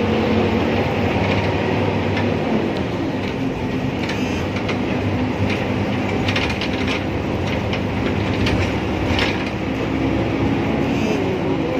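Cabin noise inside a Transjakarta city bus under way: a steady engine and road rumble, with scattered clicks and rattles from the bus body and fittings, busiest between about four and ten seconds in.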